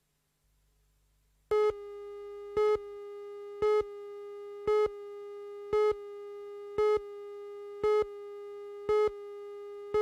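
Broadcast countdown leader tone: a steady mid-pitched tone starts about a second and a half in, with a louder pip on each second of the count, eight pips in all, and cuts off at the end.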